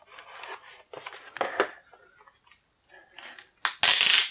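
X-Acto hobby knife scraping and slicing through clear packing tape on cardboard in a run of short strokes, then a louder rip near the end as the tape is peeled away and the plastic bag comes free.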